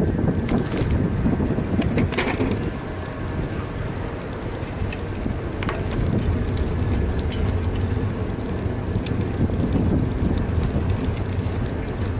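Riding a bicycle: wind buffeting the microphone of a bicycle-mounted action camera over the rumble of the tyres on the road, with scattered small clicks and rattles from the bike.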